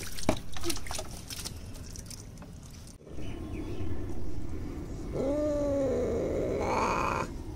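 A wet Bengal cat, wrapped in a towel after a bath, meows twice in distress: a longer, falling cry about halfway through, then a shorter, higher one near the end. Before that come rustling and rubbing sounds as the cat is rubbed with a cloth.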